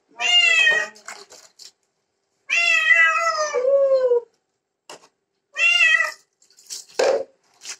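Wet cat meowing loudly three times while being bathed, the second call long and sliding down in pitch at its end. A brief splash of water poured from a jug comes near the end.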